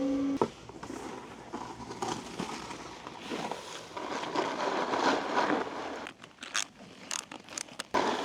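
Snowboard sliding and scraping over icy, slushy snow, an uneven hiss that swells and fades, with a few sharp clicks near the end.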